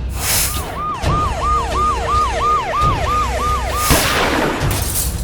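Siren giving a fast yelp, rising and falling about three times a second for about three seconds, set between two whooshing sound effects.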